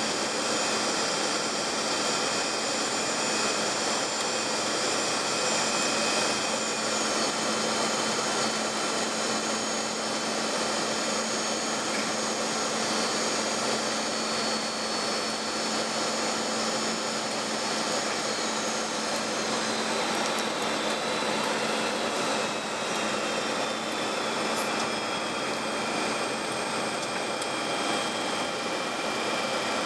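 Steady jet engine and airflow noise inside a large jet's cockpit on approach, with thin high whines running through it that glide slightly lower in pitch a couple of times.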